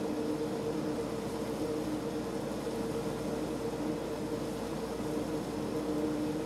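Pot of water near a rolling boil on the stove, a steady rushing noise with a steady low hum underneath.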